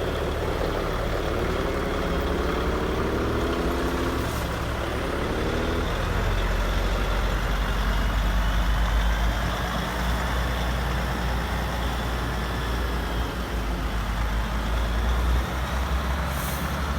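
Radio-controlled heavy construction models running as a chained, stuck excavator is towed out. A steady low engine drone runs throughout, with a motor whine that rises from about a second in and falls away around five or six seconds.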